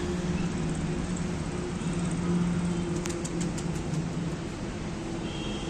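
Steady hum of a running vehicle engine over street traffic noise, with a few light clicks about three seconds in.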